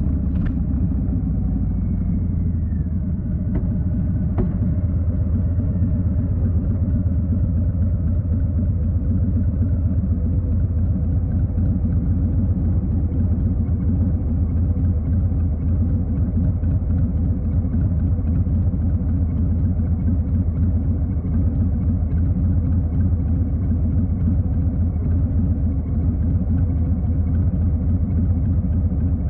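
2020 Harley-Davidson Street Bob's Milwaukee-Eight V-twin engine running with a steady, loud, low rumble at an even engine speed.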